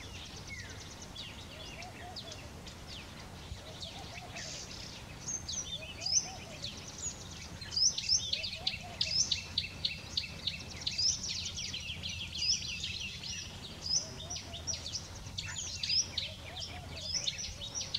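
Several small birds chirping and calling in quick, overlapping high notes and short trills, busiest from about eight seconds in, with a few fainter lower calls now and then over a steady low background rumble.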